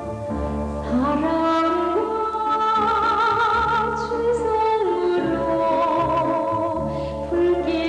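Orchestral soundtrack music. About a second in, a solo voice enters with an upward glide and sings long held notes with vibrato in an operatic style.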